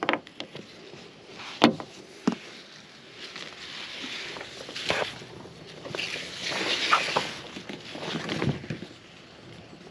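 Nylon webbing strap being handled and pulled along a kayak and truck rack: rustling swishes of the strap sliding, with a few sharp clicks and knocks and a short squeak.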